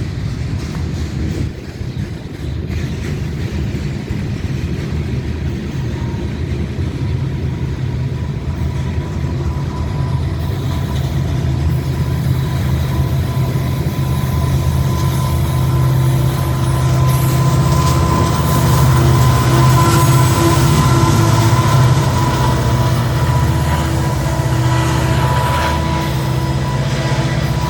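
Ferromex freight train rolling past: a steady rumble of wagons on the rails, with a diesel locomotive's low engine drone growing louder over the second half. A thin steady high whine runs along with it.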